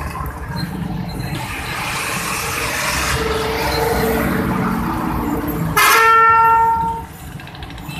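Engine and road noise of motor traffic on the move. Near the end a loud vehicle horn sounds once, starting suddenly and holding for about a second.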